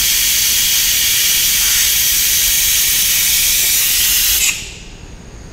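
Vacuum brake bleeder running with a loud, steady hiss while the bleed hose is pulled off the closed rear brake caliper bleeder nipple. It cuts off suddenly about four and a half seconds in.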